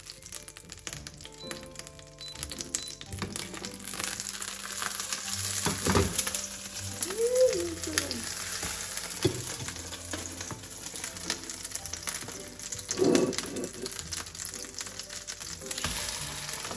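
Butter melting and sizzling in a hot stainless-steel frying pan, a steady frying hiss, with a couple of louder knocks about six and thirteen seconds in.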